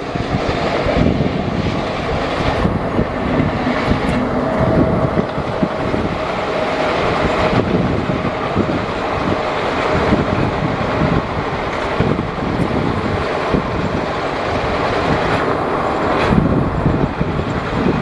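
WAP-7 electric locomotive hauling a passenger express at speed, with the steady rumble of the train running along the track.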